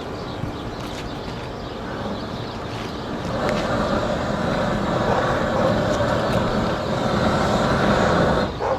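Propane roofing torch blowing, growing louder about a third of the way in and cutting off suddenly near the end, as torch-down roofing material is heated.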